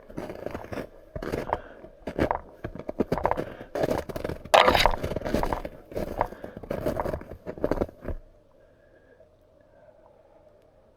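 Irregular crunching and scraping sounds that stop abruptly about eight seconds in.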